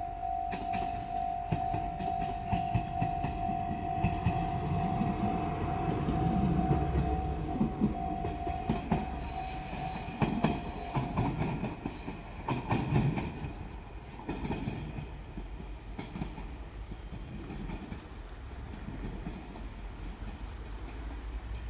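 Level-crossing warning bell ringing in a steady tone as a JR Shikoku Series 1500 diesel railcar passes over the crossing, its wheels clicking over the rail joints. The bell stops about halfway through, and the train's rumble dies down afterwards.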